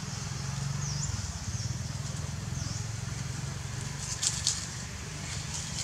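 A steady low motor rumble with fast even pulsing, with faint high chirps early on and two sharp crackles about four and a half seconds in.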